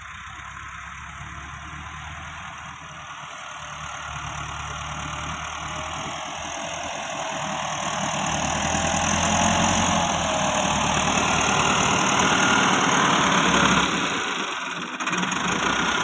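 Massey Ferguson 385 tractor's diesel engine running steadily as the tractor pushes sand with its front blade. It grows louder through the middle as the tractor comes closer, then drops briefly near the end.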